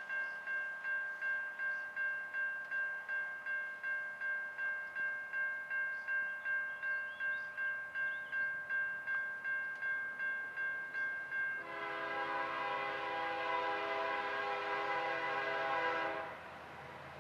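A bell rings rapidly, about three strikes a second. About twelve seconds in, the leading CSX freight locomotive sounds its multi-tone air horn in one long blast of about five seconds, the loudest sound here. The horn cuts off sharply, leaving the lower rumble of the train.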